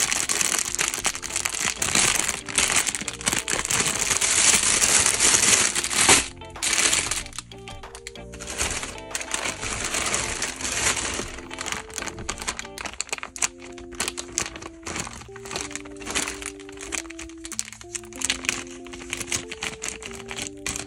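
Plastic bags crinkling as they are opened and handled: a grey plastic mailer and clear poly bags. The crinkling is loudest for the first six seconds, then thins out, and background music with a melody of single held notes comes through under it.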